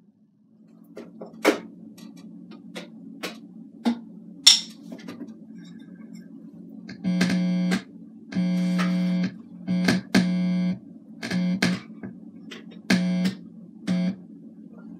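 Alesis electronic drum kit's amplified output: a steady low hum with clicks and knocks as the drum module and its leads are handled, then a loud buzz that cuts in and out abruptly in blasts of half a second to a second, several times. The buzzing is the sign of a faulty connection in the kit's setup.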